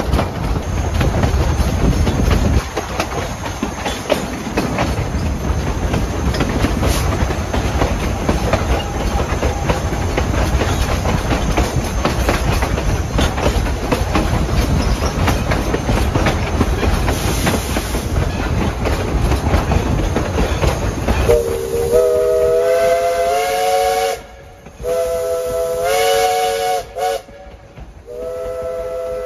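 East Broad Top No. 16, a 2-8-2 steam locomotive, rolling along the track: steady wheel-and-rail noise with many small clicks. About two-thirds of the way in its chime whistle sounds several notes at once in four blasts, long, long, short, long, the pattern of a grade-crossing signal.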